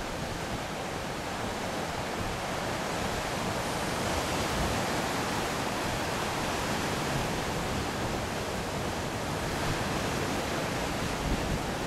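Ocean surf breaking and washing up a sandy beach: a steady rushing wash that swells a little midway.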